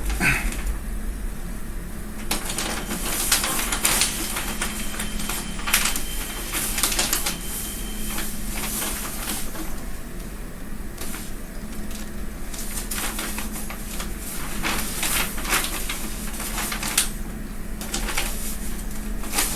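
Pattern paper and fabric rustling and crinkling in irregular bursts as they are shifted and pinned, over a steady low electrical hum.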